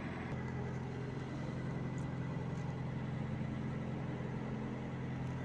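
Kenworth truck's diesel engine idling with a steady low drone and a faint, steady high tone above it.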